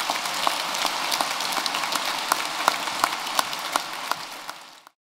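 Audience applauding: a dense, steady clatter of many hands clapping, with a few sharper single claps standing out. It cuts off abruptly near the end.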